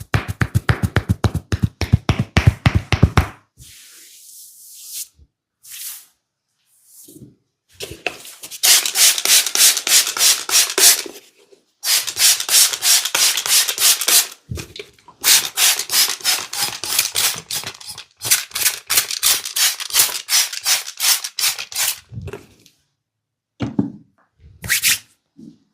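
Hand massage: quick rhythmic tapping strokes, about seven a second, for the first three seconds, then long runs of brisk rubbing, four or five strokes a second, of hands working over the body, broken by short pauses.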